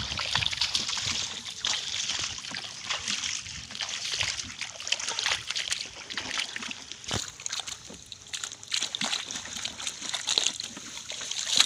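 Dozens of small fish flapping and splashing in the shallow water caught in a bamboo-framed hand net, a steady crackling patter with water sloshing and trickling through the mesh.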